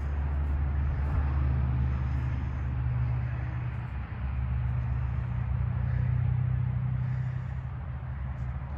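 Road traffic going by: a steady low rumble that swells twice as vehicles pass.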